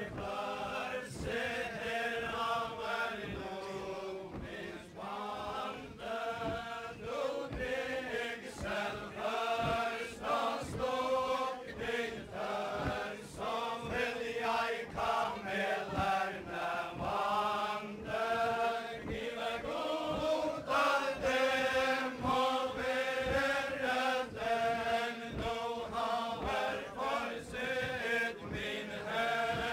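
A group of voices singing a traditional Faroese wedding ballad together for the chain dance, moving steadily from note to note. Beneath the singing runs a regular rhythm of thumps from the dancers' steps.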